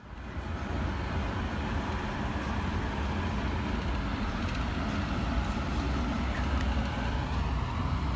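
Steady rumble of vehicle engines and traffic, with a strong low-end drone.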